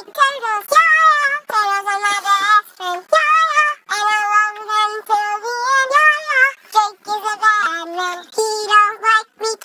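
A high-pitched voice singing alone, with no backing instruments, in short phrases separated by brief gaps.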